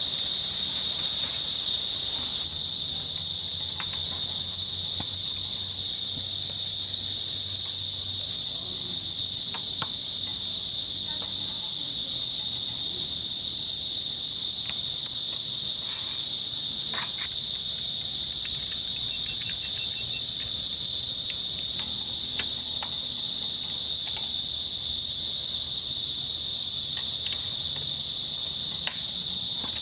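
Steady, loud chorus of insects, crickets or cicadas, shrilling without a break, with a few faint clicks.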